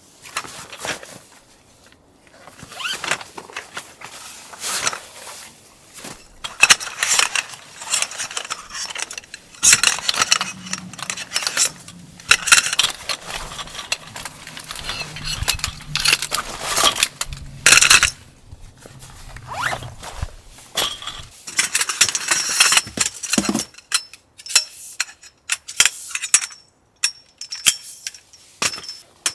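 Tent fabric and camping gear being handled in irregular bursts of rustling, with zips drawn and small clicks in between.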